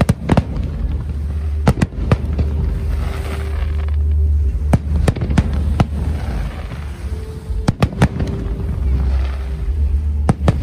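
Aerial fireworks bursting: sharp bangs at irregular intervals, often two or three in quick succession, over a steady low rumble.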